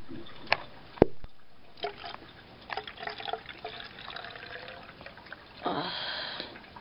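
Water poured from a large plastic jug into a spray bottle, trickling and dripping. Two sharp knocks of handling come early, and a louder rush comes near the end.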